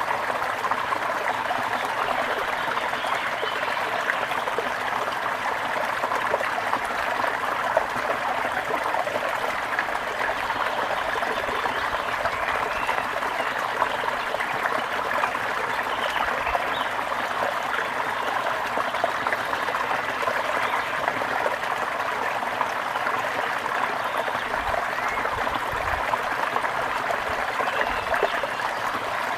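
A gentle river flowing, a steady even rush of water.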